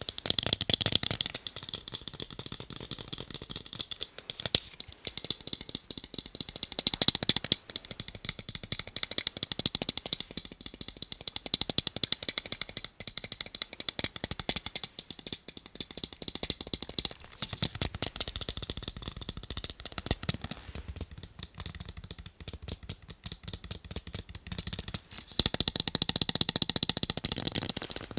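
Fast, continuous tapping on a pair of eyeglasses: a dense patter of rapid clicks, with louder stretches near the start, around a quarter of the way in, and near the end.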